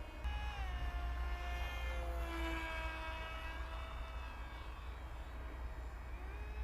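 The ZOHD Dart XL's electric motor and propeller whining in flight, heard from the ground. The pitch falls shortly after the start, holds, then rises near the end as the throttle goes to full. Low wind rumble on the microphone underneath.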